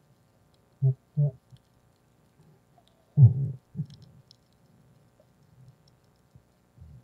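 Underwater sound heard through the camera housing during a night dive: a few short, muffled low thuds and bubbling bursts, the loudest a little past three seconds in, with faint scattered clicks in between.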